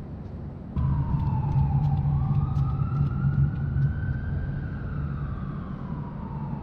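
An emergency vehicle's siren cuts in abruptly about a second in and wails in a slow rise and fall, over a loud low rumble of traffic.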